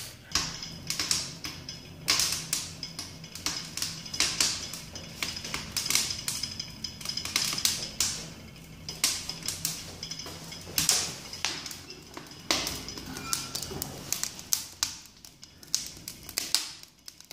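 Broken pallet wood burning in the firebox of a wood-burning cook stove, crackling with irregular sharp pops and snaps several times a second, over a faint steady high hum.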